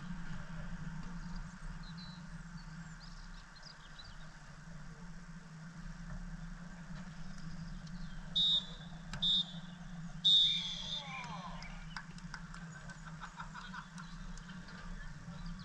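Referee's whistle blown three times, two short blasts then a longer one: the full-time whistle. A steady low hum runs underneath.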